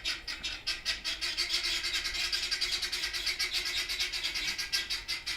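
A flock of ducks calling together in a continuous, rapid chatter of overlapping calls.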